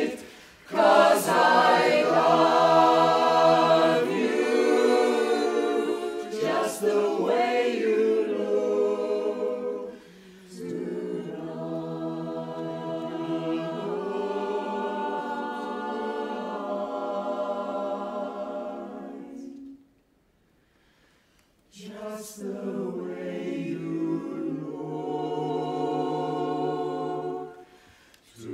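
Mixed-voice barbershop chorus singing a cappella in close harmony. The singing comes in phrases with short breaks between them, and about two seconds of silence a little past two-thirds of the way through.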